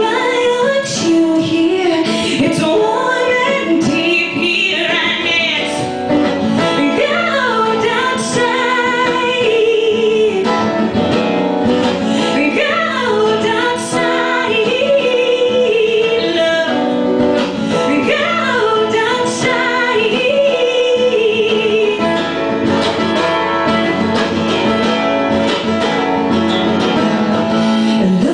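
A woman singing with vibrato while playing an acoustic guitar, in a live solo performance.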